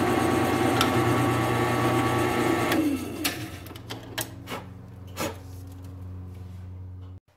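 Drill press boring a quarter-inch hole through a steel knife blade, a loud steady grinding cut. About three seconds in the cutting noise drops away and the press runs on freely with a lighter hum, while a few sharp metal clicks come from the locking-pliers clamp being worked and released; the hum cuts off just before the end.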